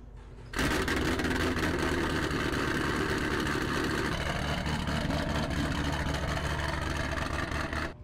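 Electric heat gun running steadily, its fan blowing with a low motor hum. It switches on about half a second in and cuts off abruptly near the end.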